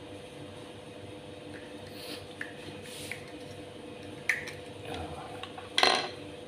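Small plastic aquarium water pump being taken apart by hand: light scrapes and clicks of plastic parts, a sharp click about four seconds in, and a louder short plastic snap near the end as the housing comes apart.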